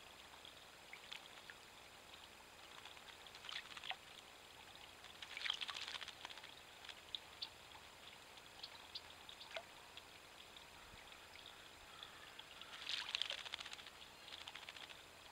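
Northern mockingbird bathing in a birdbath: short bouts of splashing water from its wings and body, the strongest about five and thirteen seconds in, with small drips and ticks between. The splashing is faint.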